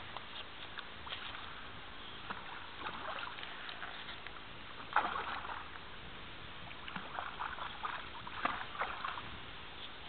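A hooked carp splashing at the water's surface close to the bank as it is played in, in irregular bursts, the loudest about five seconds in and a cluster near the end.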